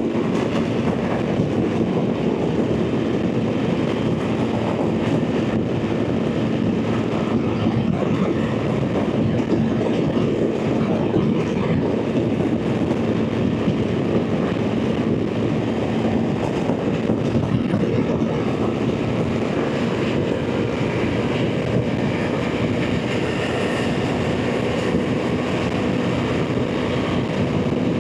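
BMW R 1300 GS Adventure's boxer-twin engine running steadily at highway cruise, mixed with a steady rush of wind and road noise. The engine note shifts a little higher about two-thirds of the way through.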